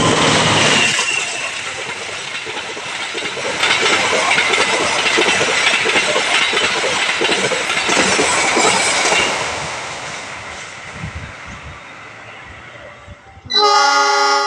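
Train passing close by: a loud rush of wheels clattering over the rail joints, dying away over the last few seconds. About a second before the end a different steady, pitched sound cuts in suddenly.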